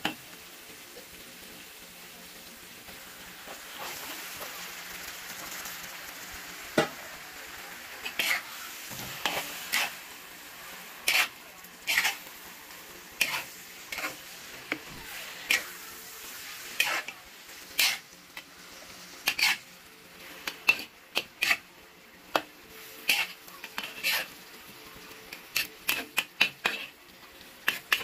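Food sizzling in a frying pan while being stirred, the utensil clicking and scraping against the pan again and again, more often near the end.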